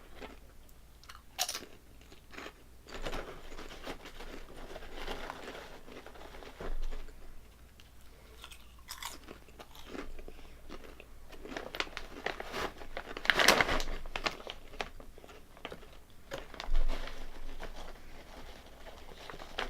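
Crunchy potato chips (Calbee Honey Butter Chips) being bitten and chewed close to the microphone, in irregular crunches, the loudest about two-thirds of the way through.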